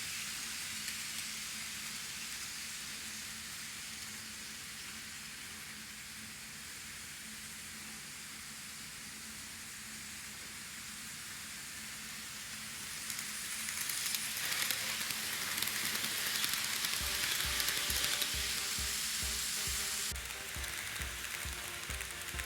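N gauge model train running on the layout track: a steady hiss-like rolling noise with a faint hum, growing louder about halfway through as it passes close. Near the end a low regular thump, about two a second, joins in.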